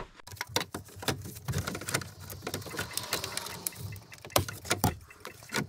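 Plastic dash bezel of a 1992 Ford F-250 being handled and pressed into place over the instrument cluster: a run of irregular clicks, taps and plastic rattles with light rustling between them.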